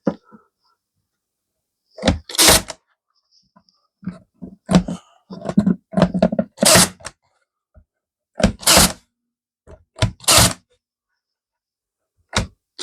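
Irregular short knocks and scrapes of wooden boards being handled and set in place, about a dozen separate bursts with silent gaps between.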